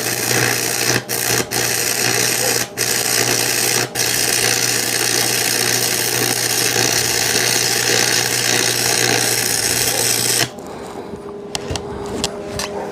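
Electric welding arc burning: a steady crackling hiss with a low buzz, breaking off for an instant four times in the first four seconds, then cut off suddenly about ten and a half seconds in, followed by faint clicks.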